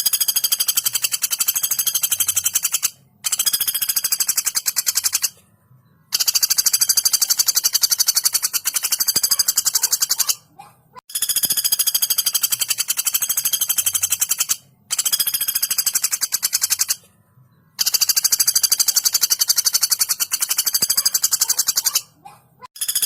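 Female woodpecker (pelatuk bawang) giving long, very fast rattling call series: six high-pitched runs of rapid, evenly spaced notes, each lasting about two to four seconds, with short pauses between them.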